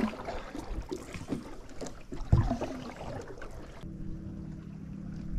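Canoe paddling: a paddle dipping and splashing in the water with small knocks, and one louder thump a little over two seconds in. Near four seconds the sound switches abruptly to a steadier low hum with light water noise.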